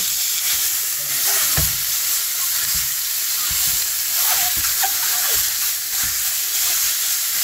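Ground meat sizzling as it fries in a hot stainless-steel pan, with a silicone spatula stirring and scraping it and knocking a few times against the pan.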